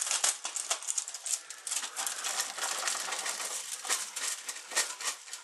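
Diced celery and onions sizzling in hot butter in a frying pan: a dense run of rapid, irregular crackles.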